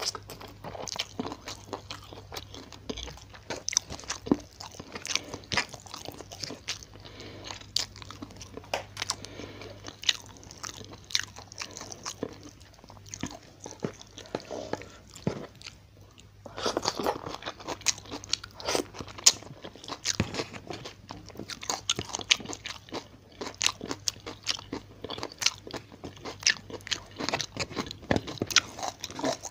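Close-miked ASMR eating sounds: a person crunching and chewing a meal of crispy fried tilapia with rice and stir-fried bok choy, many sharp crunches in quick succession. The crunching lulls briefly about halfway through, then resumes louder.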